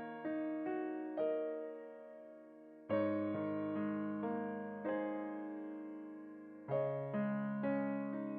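Slow, gentle background music played on piano or electric piano: sustained chords and single notes, each fading away before the next.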